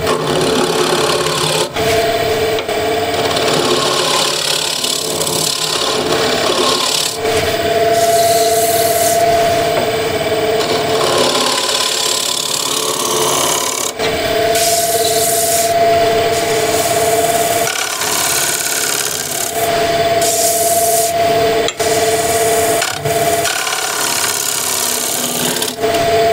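A scraper cutting the bottom of a cherry bowl spinning on a wood lathe: a continuous rasping scrape, with a steady humming tone that comes and goes. It breaks off briefly a few times.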